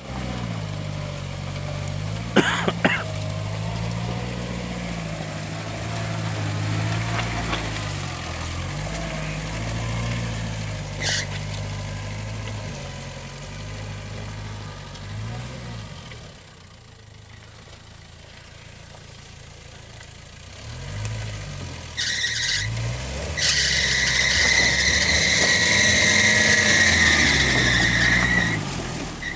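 Off-road vehicle's engine revving up and down repeatedly, with a few sharp knocks a couple of seconds in. It goes quieter for a few seconds past the middle, then a loud, steady high squeal sounds over the engine near the end.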